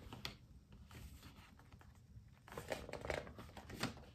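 Faint rustling and light clicks of a picture book being handled, mostly from about two and a half to four seconds in, over quiet room tone.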